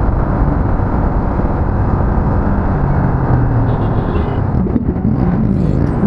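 Motorcycle engine running under way, mixed with wind rushing over the rider's microphone. Near the end the engine pitch falls and rises again.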